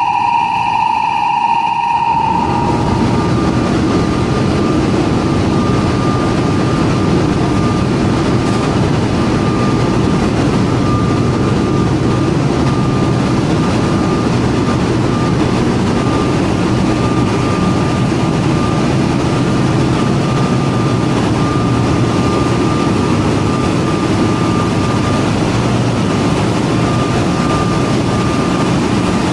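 Loud, steady machinery noise in the engine room of a dual-fuel diesel-electric LNG carrier, with running pumps, motors and generator engines blending into one drone and a thin steady high whine above it. For about the first two seconds a high whine stands alone, then the full drone takes over suddenly.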